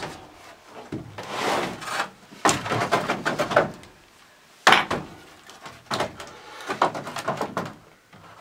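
Wooden pallets being dragged, scraped and knocked into place on a wooden deck, in several rough stretches with a sharp wooden knock about halfway through.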